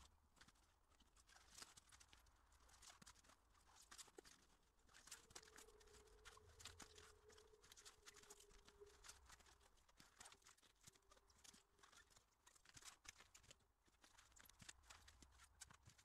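Near silence, with faint scattered crackles and rustles of plastic stretch film being unrolled and pulled taut around tree trunks.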